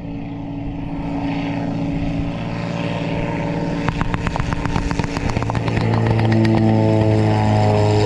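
Propeller engine of a Nieuport fighter replica flying low, approaching and passing overhead. The drone grows louder, and its pitch drops about five seconds in as the plane goes by.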